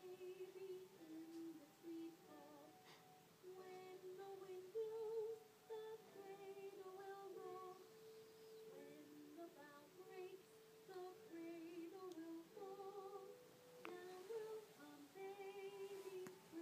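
A woman's voice softly humming a slow tune, held notes stepping up and down with a slight waver.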